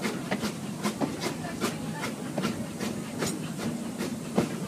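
Steam train rolling along the track: sharp, irregular clicks and clacks from the wheels and cars, two or three a second, over a steady low rumble and a faint steam hiss.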